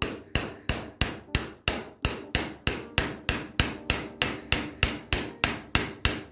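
Hammer lightly tapping a socket to drive a new tripod (inner CV joint spider) onto the splined end of a driveshaft, about three even metal-on-metal taps a second, each with a short ring.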